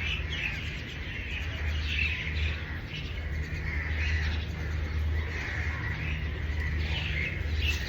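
Small birds chirping and tweeting in short, repeated calls, over a steady low rumble.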